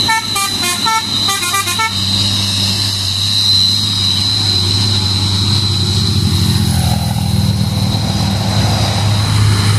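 Dump truck sounding a musical multi-tone horn, a quick run of short notes stepping up and down that stops about two seconds in. Then the truck's diesel engine drones steadily as it climbs past under load.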